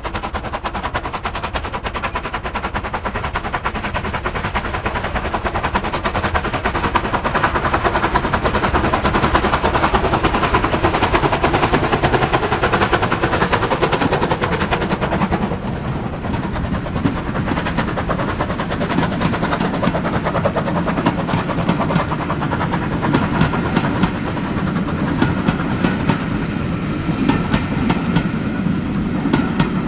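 Bulleid Battle of Britain class steam locomotive 34059 working hard as it passes, its three-cylinder exhaust beating rapidly. After about fifteen seconds the beats fall away to the rumble of the coaches rolling by, with the wheels clicking over the track.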